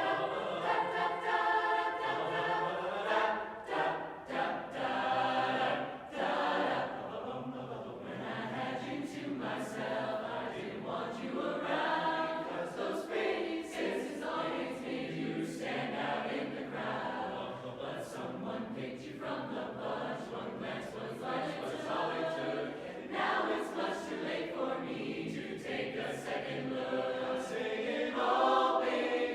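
Mixed youth barbershop chorus singing a cappella in close harmony, with many voices holding and moving through chords together.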